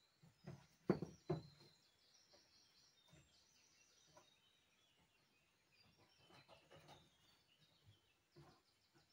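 Small birds twittering faintly in the forest, with several soft thumps and rustles of someone moving about and handling things, the loudest about a second in.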